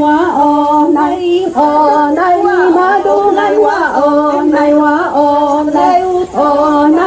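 Unaccompanied group singing of a song in repeated syllables such as "nai wa o", with long held notes that slide between pitches.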